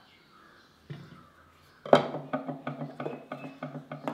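A metal ladle knocking and scraping in a terracotta pot while brined amla (Indian gooseberries) are scooped out. After one light click, a quick run of small clicks and knocks starts about two seconds in.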